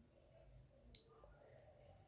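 Near silence: faint room tone with one small click about halfway through.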